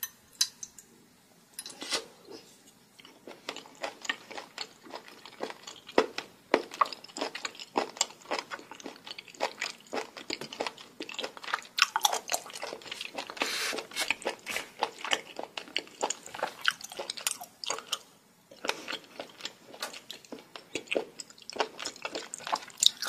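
Close-miked mukbang chewing of raw seafood dipped in red sauce: dense, irregular wet clicks and crunchy bites, with a longer noisy stretch around the middle.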